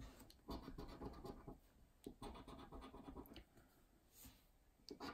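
A coin scratching the latex coating off a lottery scratchcard: two spells of quick rubbing strokes about a second each, a pause, then the scratching starts again near the end.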